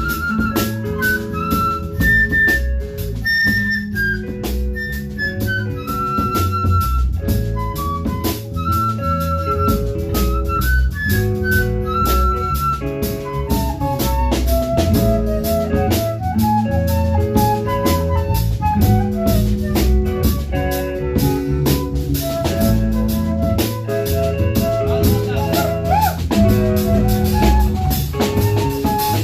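Live band music with a drum kit keeping a busy beat under a bass line and a higher melodic lead line.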